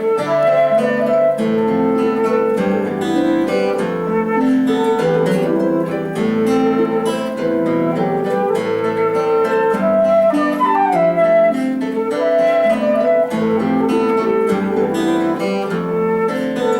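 Instrumental folk music: a flute melody over plucked Celtic harp, with the flute sliding down about ten seconds in.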